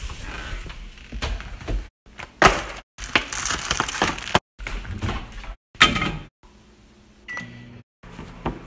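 Quick-cut kitchen handling sounds: food being taken from a pantry and a plastic bread bag crinkling, then a short microwave keypad beep about seven seconds in, followed by the oven's low hum.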